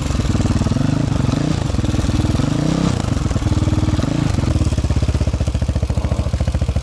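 Husqvarna SM 570 R's single-cylinder four-stroke engine revving up and down several times. About four seconds in it drops to a steady idle with each beat clearly separate. The rider complains it won't pull.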